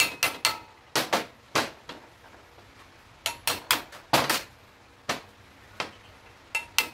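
Hammer tapping a worn steering-head bearing race off a motorcycle's triple clamp: light, sharp metal-on-metal taps in small groups of two to four, switching sides so the race comes off evenly.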